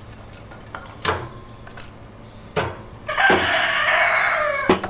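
A rooster crows once, a long call of about a second and a half starting about three seconds in, and it is the loudest sound. Before it come two sharp knocks of split firewood being handled, and another knock follows near the end.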